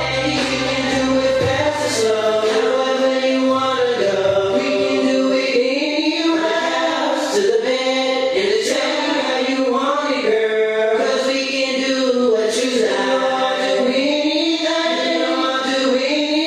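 Music with a singing voice: long held notes that slide in pitch. The deep bass drops away about four seconds in.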